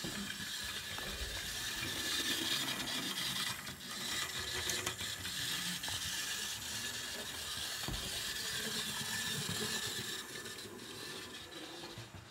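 Hornby James OO gauge model locomotive running along its track, its ring-field motor and gears giving a steady whirr. The level dips briefly about four seconds in and drops again near the end.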